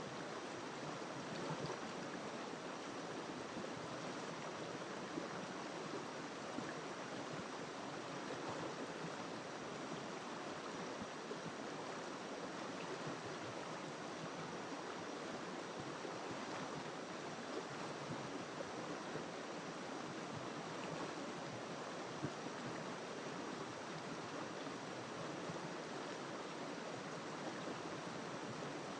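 A river flowing steadily over rocks, an even rushing of water.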